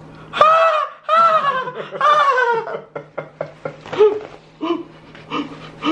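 Laughter: three long, high-pitched cries that fall in pitch, then shorter bursts of laughing.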